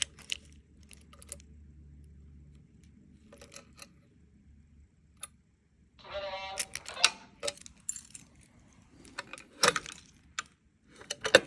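Irregular clicks and knocks of handling, with a brief buzz about six seconds in.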